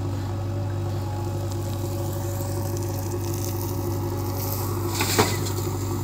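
JCB 3DX backhoe loader's diesel engine running steadily. About five seconds in there is a short rush as the bucket dumps soil into the truck bed.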